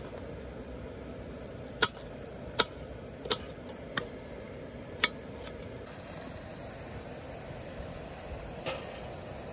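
A small kitchen knife knocking against an enamel camping plate while cutting vegetables: five sharp clicks over the first five seconds, over a steady low background hiss.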